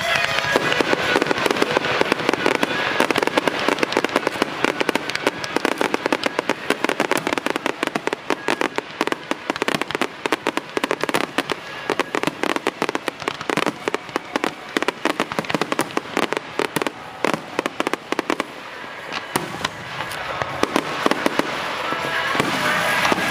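Fireworks display: a dense rapid crackle of many small pops that thins out near the end, as music rises in the background.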